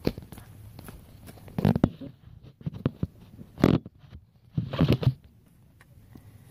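Phone handling noise: the phone's microphone knocked and rubbed as it is set down and propped up, with a click at the start, three short scraping rustles and a few small taps in between.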